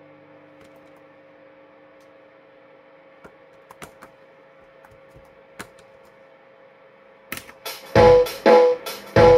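Electric guitar: a held note rings and slowly fades, with a few faint string clicks, then about seven seconds in he starts strumming loud chords, three or four sharp strums in quick succession.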